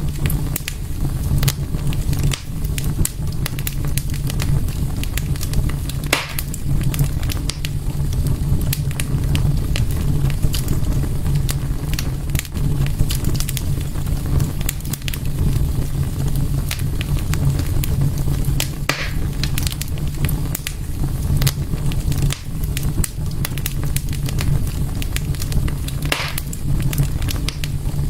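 Wood fire in a fireplace crackling, with irregular sharp pops over a steady low rumble and a few short hisses.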